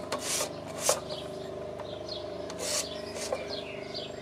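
Hand rubbing and scraping on the sandpaper belt and metal tool rest of a Parkside PSBS 240 C2 bench grinder's belt sander, switched off: a few short rasping scrapes.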